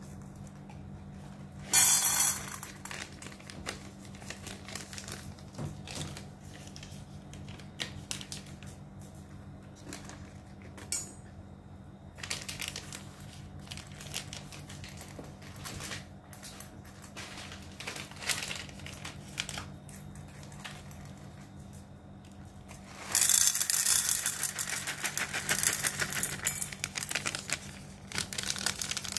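Plastic pouch of dry cat food crinkling as it is handled and kibble is tipped into a metal bowl, loudest over the last six seconds. Before that come scattered rustles and clicks, with one short loud rustle about two seconds in, over a faint steady low hum.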